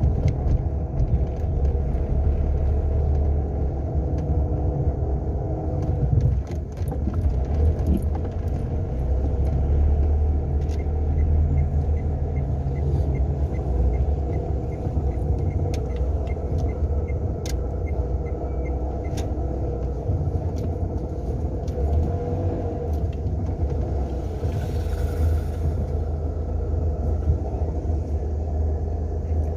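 Renault Sandero being driven: a steady low rumble of engine and road noise, with a faint regular ticking for several seconds in the middle.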